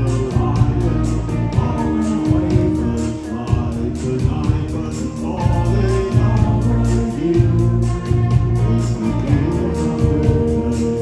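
Rock band playing live: a male lead singer over drums, bass, electric guitar and keyboards, with a steady beat.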